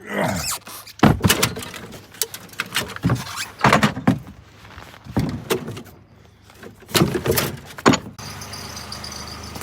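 Irregular clunks, knocks and thuds of tools and gear being handled and set down, some like a door or hatch being worked. About eight seconds in, a steady high whine and a low hum come in.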